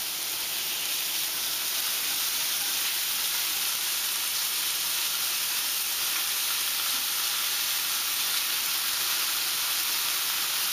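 Turkey patties sizzling steadily in two frying pans on a gas stove, a continuous even frying hiss.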